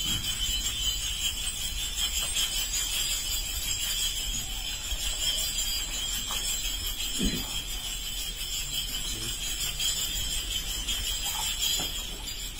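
Small metal ritual bells rung steadily throughout, a continuous high ringing.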